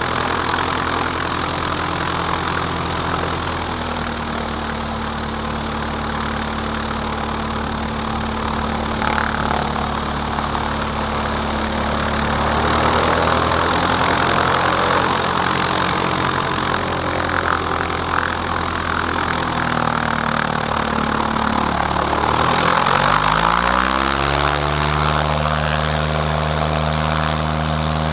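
Cessna 177 single-engine propeller plane's engine running steadily. About three-quarters through, the engine pitch dips briefly and then climbs quickly, settling at a higher, steady speed.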